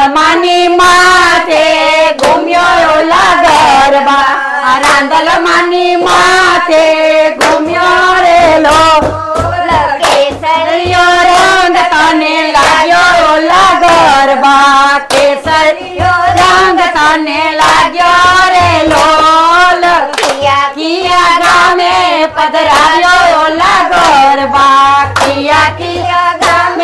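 Group of women singing a Gujarati garba folk song unaccompanied, with rhythmic hand clapping as they dance.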